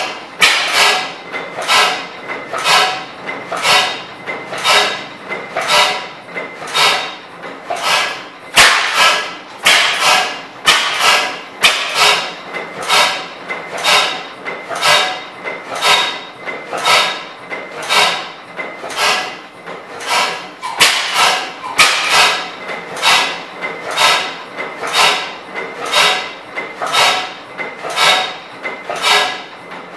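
10 HP Schleicher Schumm slide-valve gas engine running at speed, with an even sharp knock nearly twice a second and some beats louder than others. Its fuel is being switched over from illuminating gas to propane.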